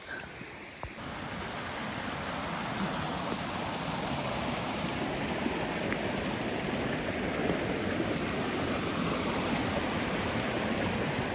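Creek water rushing steadily, swelling about a second in and growing gradually louder.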